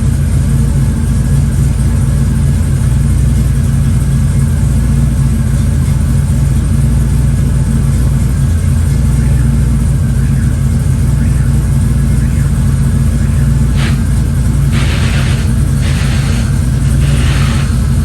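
Vehicle engine running with a steady low drone, with a few short hissy bursts near the end.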